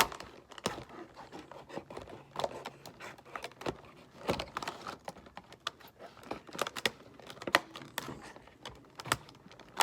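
Irregular clicks, taps and crinkling of plastic packaging and small gear being handled and rummaged through.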